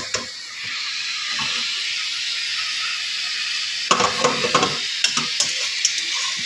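Sugar and a little water heating in a non-stick saucepan, sizzling steadily from about half a second in as the sugar begins to melt. From about four seconds in, a spatula stirs and scrapes against the pan in a run of sharp clicks.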